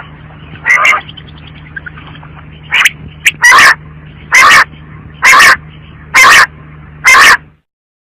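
Female quail calling: a string of loud, rough calls, the last five evenly spaced about one a second, over a steady low hum. The sound cuts off suddenly near the end.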